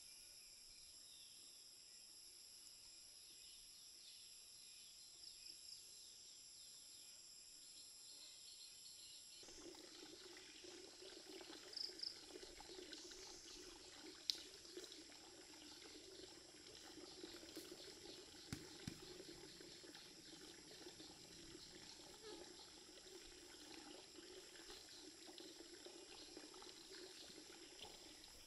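Faint rural ambience: insects trilling in steady high tones. About a third of the way through the background changes and a low murmur joins, with a few faint chirps and clicks.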